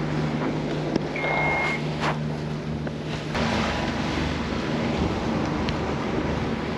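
Catamaran's inboard engine running steadily under way, a low even hum, with wind rushing on the microphone that grows louder about three seconds in. A short high beep sounds about a second in, with a couple of sharp clicks.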